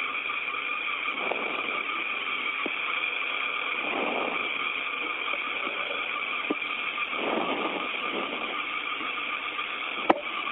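Steady hiss and static of an open spacecraft air-to-ground radio channel, with a swell of noise about every three seconds and a sharp click near the end.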